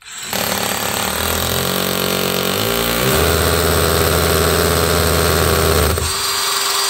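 Ryobi power drill boring a hole into a wallpapered wall, running steadily under load. Its pitch shifts about three seconds in, and near the end the deep part of the sound drops out while the motor keeps spinning.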